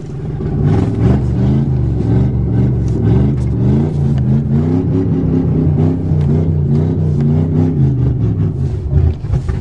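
Car engine revving under load in drive, its pitch surging up and down about twice a second with a scatter of crackles, easing off just before the end.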